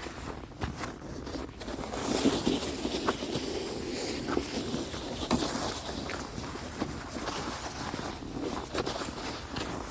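Footsteps in snow, an irregular run of soft crunches and scuffs.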